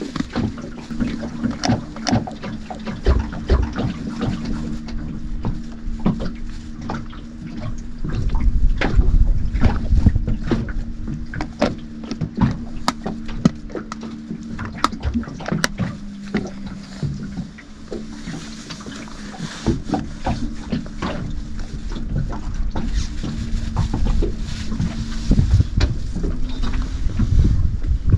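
Wind on the microphone and water lapping against a small boat, with scattered clicks and knocks from moving about on board. A steady low hum runs underneath and stops near the end.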